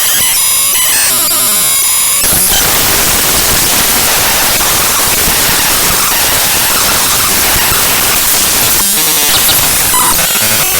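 Raw bytes of the avcodec.dll library file played back as audio: buzzy, steady electronic tones for about the first two seconds, then loud harsh hiss like static.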